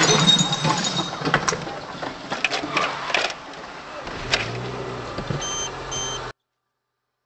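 Car cabin and road noise picked up by a dashcam's microphone while driving, with scattered clicks and knocks, then two short electronic beeps near the end before the sound cuts off suddenly.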